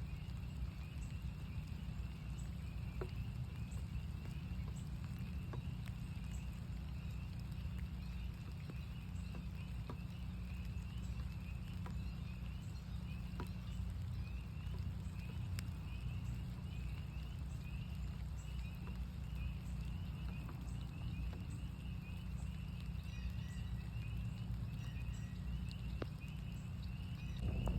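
Chorus of northern spring peepers: many short, high peeps overlapping continuously at one pitch. Under it, a steady low rumble and scattered sharp ticks of rain drips, with a louder swell right at the end.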